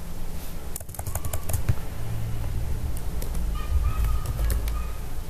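Computer keyboard being typed on, with a quick run of keystrokes about a second in and a few scattered clicks after, over a steady low hum from the recording.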